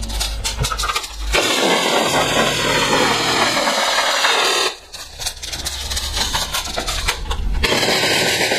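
G&G CM16 Carbine airsoft electric gun (AEG) on a 9.6 V NiMH battery firing full-auto in long strings, its motor and gearbox giving a fast mechanical buzz, played back at double speed. The firing breaks off briefly a little past halfway, then resumes.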